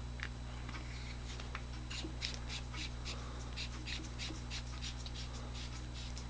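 Faint scratchy strokes, about three a second, from the threads of an aluminium flashlight body being screwed back together after a battery is loaded.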